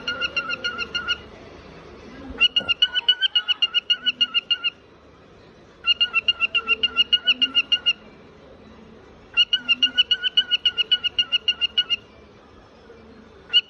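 Cockatiel chattering in bursts of rapid, evenly pulsed chirps at a steady pitch, about nine a second. There are four bursts of about two seconds each, a second or so apart, and a fifth starts at the very end.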